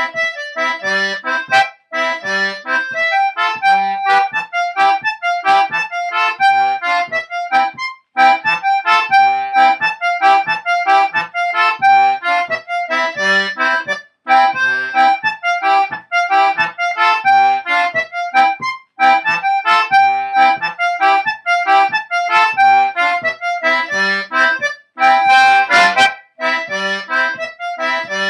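C/G Anglo concertina playing a brisk, repetitive morris dance tune: a melody of quick, separate notes over a regular pattern of lower bass notes, with brief breaks every few seconds between phrases.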